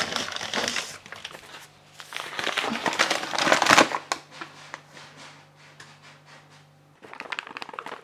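Flour bag crinkling and rustling in two bursts as flour is poured out to be weighed, followed by a few light clicks of kitchen handling near the end.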